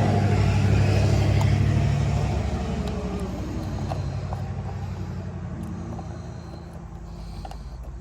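A motor vehicle's engine running steadily, loudest at first and then fading away over several seconds as if moving off, with a few faint small clicks.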